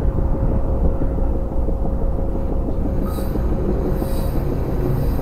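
Steady low machinery rumble with a faint steady hum as a hydraulically driven gas-freeing fan is started from its valve off the ship's hydraulic power pack. Brief hissing bursts come about three and four seconds in.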